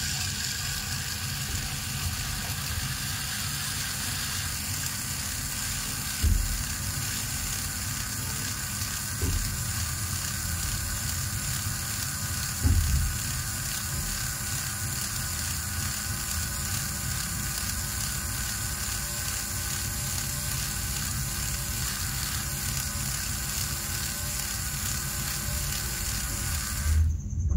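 Small electric motor of a miniature model tractor running steadily while its rear wheel spins in loose sand, making a steady hiss; the tractor is stuck, its wheel digging in. A few short low thumps about six, nine and thirteen seconds in, and the sound cuts off suddenly near the end.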